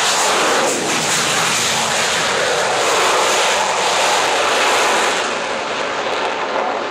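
Avro Vulcan XH558's four Rolls-Royce Olympus turbojets at full power on takeoff and climb-out: loud, steady jet noise that eases slightly about five seconds in.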